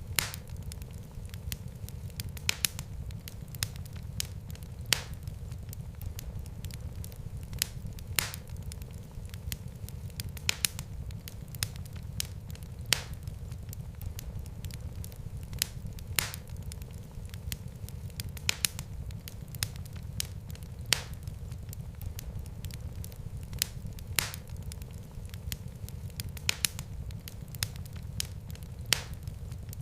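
Wood fire in a fireplace crackling: sharp pops every second or two over a steady low rumble of the flames.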